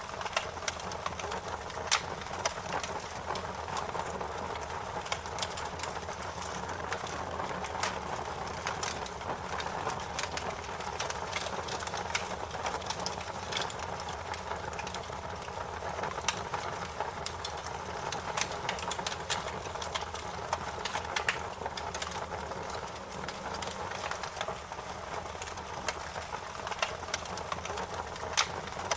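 Fire crackling: a steady hiss of burning with frequent sharp pops and snaps, a few louder pops scattered through.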